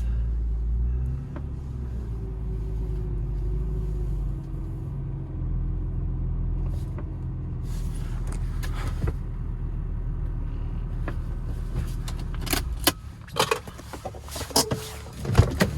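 A car engine running steadily at low speed while the car is moved, with a faint rising whine early on. About three-quarters of the way through the engine sound drops away, followed by a run of sharp clicks and knocks.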